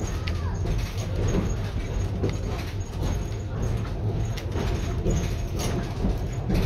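Vintage electric streetcar heard from inside, rolling along the track: a steady low rumble of the wheels and running gear, with occasional sharp clicks and knocks.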